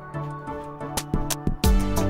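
Instrumental background music: held pitched notes over a light beat, with a fuller drum beat and deep kick coming in near the end.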